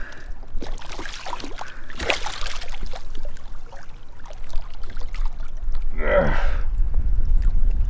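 Water sloshing and splashing against a kayak's hull beside a hooked jack crevalle, with wind rumbling on the microphone, stronger in the second half. About six seconds in there is a short gasp-like vocal sound that falls in pitch.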